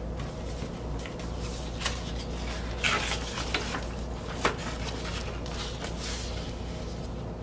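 A vinyl record being slid into its paper sleeve, with the cardboard jacket and printed insert handled: rustling paper with a few sharp taps and knocks, the loudest about three seconds and four and a half seconds in.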